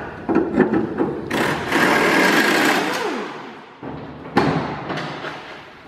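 Socket ratchet clicking rapidly as the hinge bolts of a steel truck-cab door are backed out, then a single metal clank a little past four seconds in as the door comes free.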